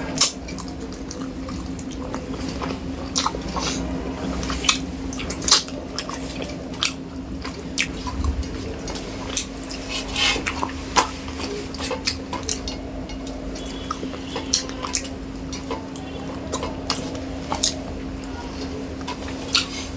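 Close-up eating sounds of rice with fish curry: irregular wet clicks, smacks and chewing. A steady low hum runs underneath.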